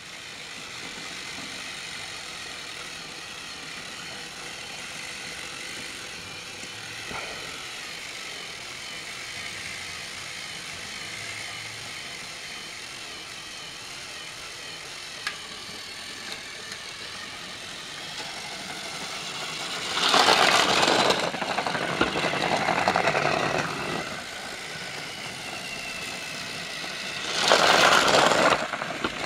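Battery-powered Trackmaster toy train running on plastic track, its small motor whirring and the wheels rattling. It grows louder from about two-thirds in, and is loudest twice near the end as it passes close by.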